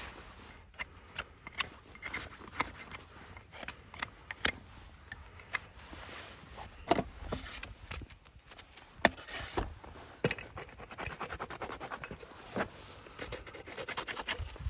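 Farrier's hand tools working on a horse's hoof: irregular scraping with sharp clicks, turning into a fast run of short repeated strokes about two-thirds of the way through.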